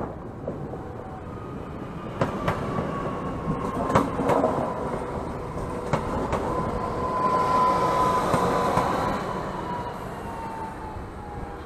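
Electric multiple unit 36WE-008 pulling into the station past the platform. Its wheels click over the rail joints, and an electric whine falls slowly in pitch as it slows. It is loudest as the cars pass close, then eases.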